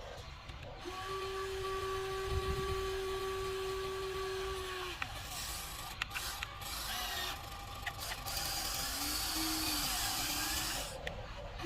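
Small electric motors of a Huina 1594 RC excavator whining as it works. One steady whine is held for about four seconds, then shorter wavering whines come near the end, with a few clicks in between.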